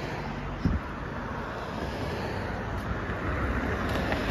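Steady road traffic noise, gently swelling toward the end as a car passes, with a short knock about a second in.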